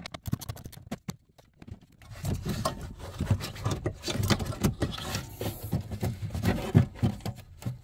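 Plastic dashboard trim panel below a car's glove box being unscrewed and pulled down. A few sharp clicks come first, then from about two seconds in a busy run of plastic knocking, scraping and rustling as the panel and its wiring connector are handled.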